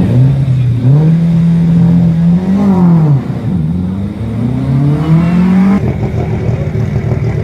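Rally car engine revving up and down: the pitch climbs and holds, drops sharply about three seconds in, then climbs again. Near the end it changes abruptly to a steadier, rougher engine noise.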